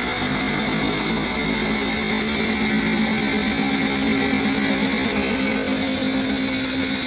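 Background music, steady and fairly loud.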